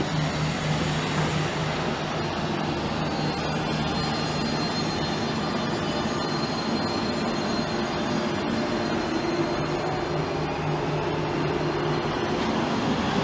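Steady rumble and hum of a Trenhotel sleeper train, heard from inside the passage between its cars.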